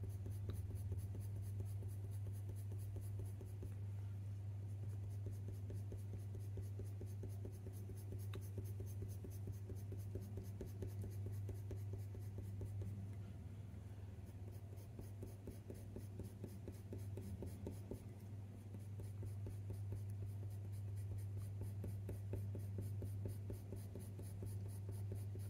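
Coloured pencil scratching softly on hot-press watercolour paper in short, rapid shading strokes, over a steady low hum.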